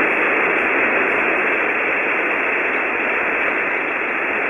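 Steady hiss of HF band noise from a ham receiver tuned to an empty 40-meter SSB channel, squeezed into the narrow voice passband; no signal is on the frequency.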